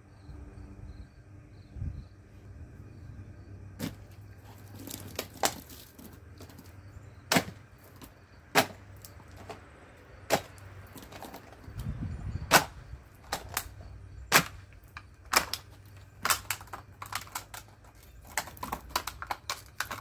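Knife blade stabbing into a plastic water bottle: a series of sharp, irregular snaps and pops as the plastic is punched, coming faster as crackles near the end.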